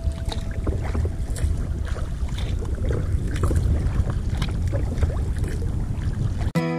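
Wind buffeting the microphone over water lapping and splashing against a kayak's hull on choppy open water, with small splashes about once a second. Background music cuts back in near the end.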